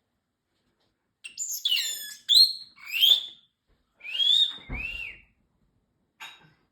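Parrotlet chirping and whistling: a run of short, high calls that glide up and down in pitch, starting about a second in.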